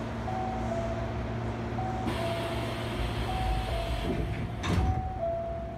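The sliding doors of a Hankyu 1300 series train car close and meet with a knock nearly five seconds in. Under it, a two-note chime repeats high then low about every second and a half, over the steady hum of the stopped train.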